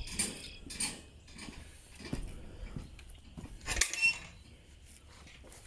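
A few scattered metallic clinks and knocks with short ringing tones, the loudest a little under four seconds in.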